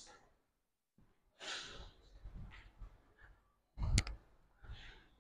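A mostly quiet room broken by a soft breathy exhale about a second and a half in, a few faint clicks, and a short sharper knock about four seconds in.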